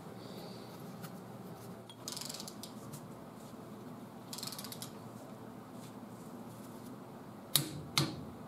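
Torque wrench ratcheting in two short spells as it tightens the nut on an AMC trunnion, then two sharp clicks near the end.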